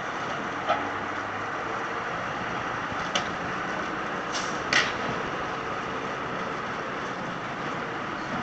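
Large forklift's engine running steadily while it loads a shipping container, with four short sharp knocks, the last and loudest nearly five seconds in.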